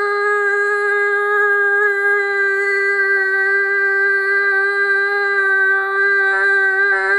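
A child's voice holding the last syllable of a shouted "fidget spinner!" as one long, steady high note on a single breath. The note wavers slightly near the end.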